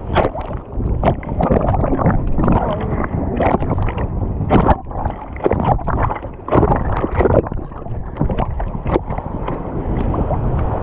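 Sea water sloshing and splashing in irregular surges, with wind rumbling on the microphone.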